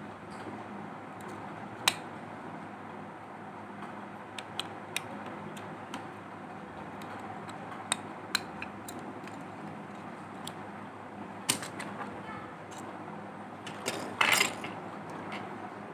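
Scattered small clicks and taps of repair tools on a mobile phone's plastic and metal parts during disassembly, over a steady background hiss, with a short rattle near the end.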